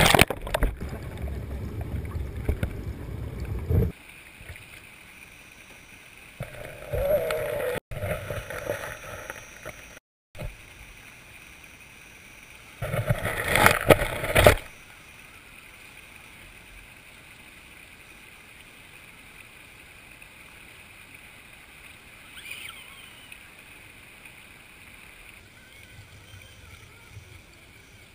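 Scale RC crawler truck, an Axial 4x4, whirring as it crawls through a creek and mud, with water splashing, in three loud stretches that start and stop suddenly. Between them and through the second half is only a low steady hiss.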